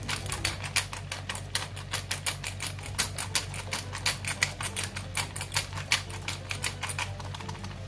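Pepper mill grinding black pepper over a pan of chicken: a fast run of sharp, dry clicks, about six a second, with no let-up.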